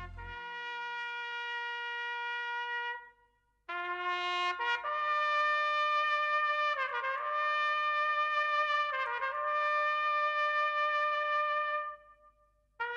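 Solo trumpet playing a slow lament of long, held notes, broken by two short pauses between phrases. Low backing music dies away just as it begins.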